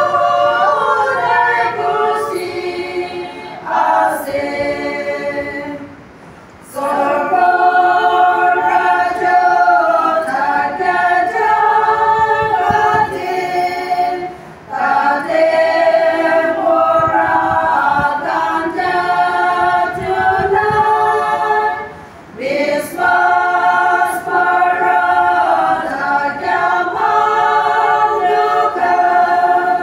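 Small women's choir singing a cappella, in long held phrases broken by brief breathing pauses about every eight seconds.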